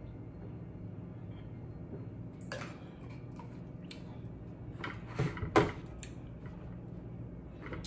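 A plastic water bottle being capped and handled: a few short sharp clicks and knocks, the loudest pair a little past halfway.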